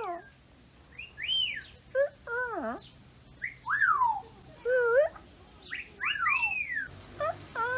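African grey parrots whistling: a string of separate rising-and-falling whistles, about one a second, some swooping down low at the end.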